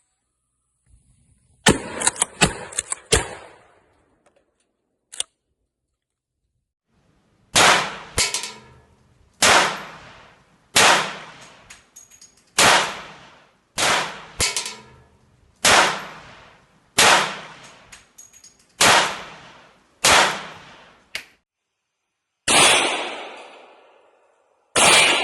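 Firearm gunshots: a quick string of about five shots, then about a dozen single shots roughly a second apart, and near the end two shots with longer ringing tails.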